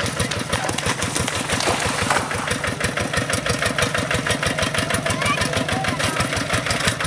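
Kubota RD85 single-cylinder diesel engine on a two-wheel hand tractor running steadily with an even, rapid firing beat as the cage-wheeled tractor works through paddy mud.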